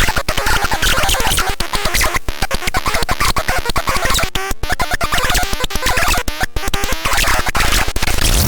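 Circuit-bent toys, a Mighty Megasaur dragon and a Black & Decker toy chainsaw, playing glitched electronic sound together: a loud, choppy, stuttering jumble of distorted noise and warbling tones that keeps cutting in and out.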